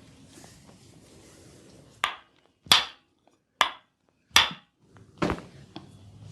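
Percussive massage strikes: five sharp slaps of hands on the body, spaced a little under a second apart, after a soft rustle of handling.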